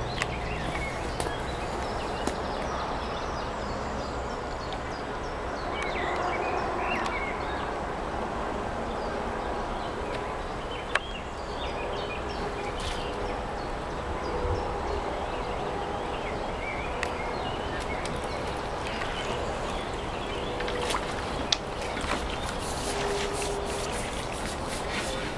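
Steady outdoor riverside ambience, with a few faint chirps and two sharp clicks.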